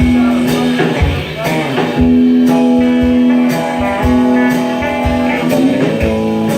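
Band playing an instrumental stretch of a blues song: guitar with held notes over a steady drum beat of about two kicks a second.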